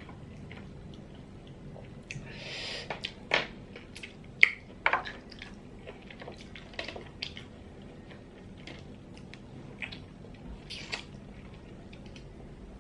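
Small sea snail shells (ốc cà na) clicking and tapping as a metal pin picks the meat out of them, with a few sharper clicks in the middle and short wet slurping and chewing mouth sounds.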